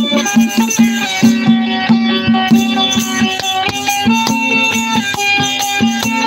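Instrumental interlude of folk devotional music: a long-necked plucked string instrument with quick repeated plucks on a droning note under a pitched melody, with sharp clicks keeping the beat.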